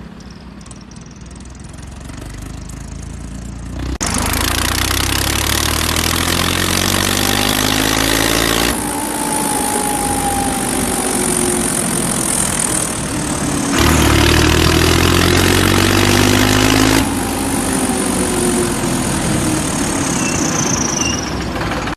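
Farmtrac 60 diesel tractor engine revved hard twice, the pitch climbing through each rev, after building up over the first few seconds. When the revs drop, a high thin whistle from an add-on turbo whistle (siti) rings over the engine and glides down near the end, imitating a turbo spooling down.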